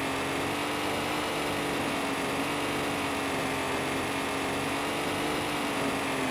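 Electric RC off-road car's motor and drivetrain whining steadily as it drives at speed, over road noise from its tyres, the pitch rising a little in the first second as it speeds up.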